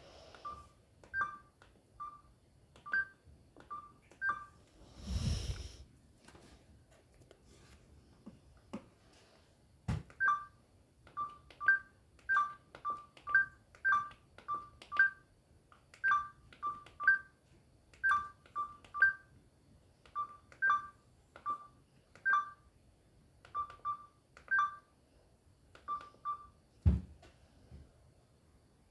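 Samsung GT-C3593 mobile phone's short electronic key beeps as its buttons are pressed, irregularly, one to two a second, at two pitches, sometimes in quick pairs. A couple of dull thumps from the phone being handled, one about five seconds in and one near the end.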